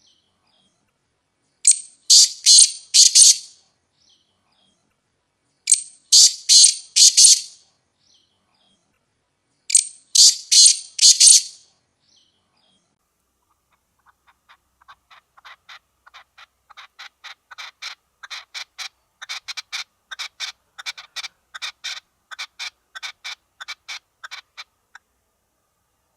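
Partridge calling: three loud, harsh bursts of about four notes each, a few seconds apart. Then a long run of quieter notes, about three a second, that swells and fades away.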